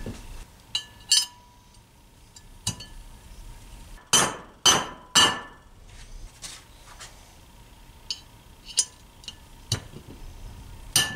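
A hammer striking metal on a workbench: scattered sharp taps with a short metallic ring, then three heavy blows in quick succession about four seconds in, followed by lighter taps.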